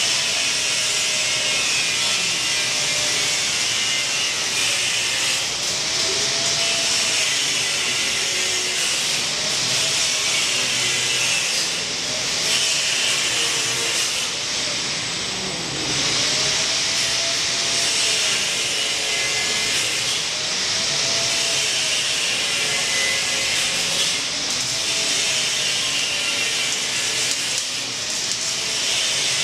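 Electric arc welding: a long, unbroken hiss from the welding arc, with a faint hum underneath that wavers slowly up and down in pitch.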